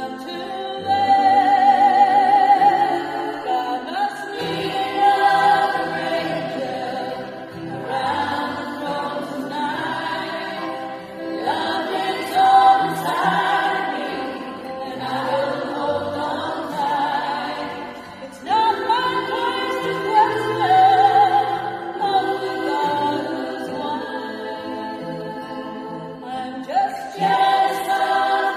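A choir singing, with held notes showing vibrato over a sustained low bass line.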